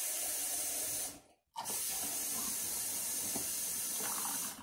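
A steady rushing hiss of running liquid, which cuts out briefly about a second in, then resumes and stops near the end.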